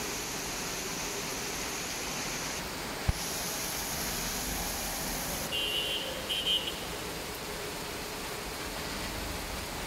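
Steady hiss of heavy rain falling on city rooftops and streets. A single sharp knock about three seconds in, and a few brief high chirps around six seconds in.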